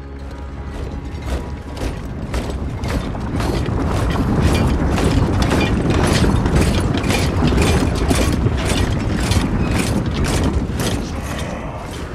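A massed army of armoured orcs marching in step: heavy rhythmic tramping with clanking metal, about three beats a second, growing louder over the first few seconds.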